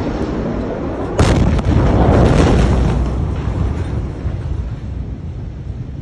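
Large explosion, the 2020 Beirut port blast: a sudden boom about a second in, then a deep rumble that fades away over the next few seconds.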